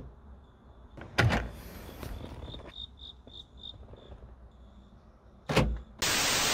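Kia Morning's door lock actuators clunking twice, about a second in and again near the end, with a quick run of faint high pips in between. A loud burst of TV-static hiss follows over the last half second.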